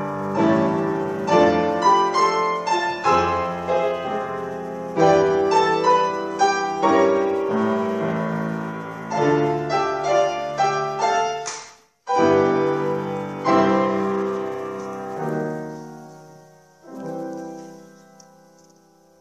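Grand piano played four hands by two young pianists: a lively run of quick notes and chords, broken by a momentary dropout about twelve seconds in, then closing chords that ring and fade away near the end as the piece finishes.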